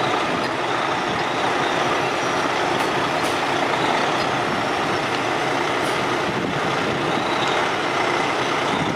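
Heavy truck engine running steadily under load as the machinery pulls a sunken boom lift out of a collapsed septic tank.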